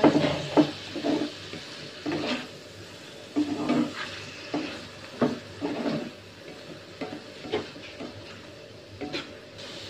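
Snails and green chili stir-frying in a wok: a steady sizzle with the spatula scraping and knocking against the pan in irregular strokes as the food is turned.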